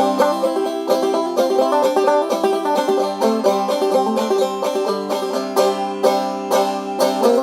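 Banjo music: a fast-picked tune with quick, sharp note attacks and no bass underneath.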